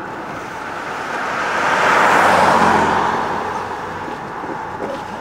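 A car passing by on the road: its tyre and engine noise swells to a peak about two seconds in, then fades away.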